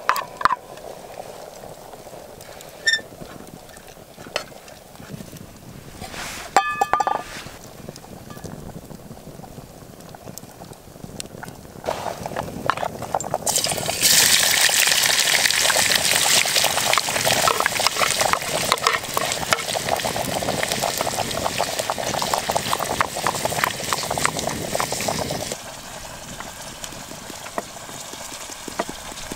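A pot of stew bubbling over a wood fire, with a few metal clinks of a spoon against the pot. About halfway in, sliced onions go into hot oil in a pan and sizzle loudly for about ten seconds; the sizzle cuts off suddenly near the end.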